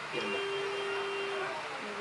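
An edited-in electronic beep: one steady tone held for just over a second, then cut off.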